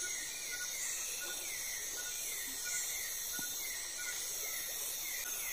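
Night-time insect chorus: a steady high-pitched buzz, with a short falling chirp repeating about twice a second.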